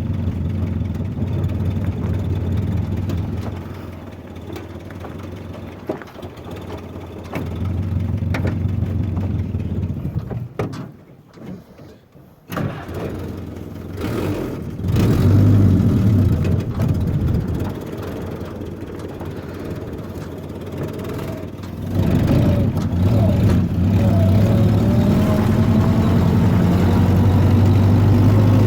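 Willys jeep's four-cylinder flathead engine running and being driven, dropping almost out for about two seconds near the middle, then coming back suddenly and rising in pitch as it accelerates toward the end.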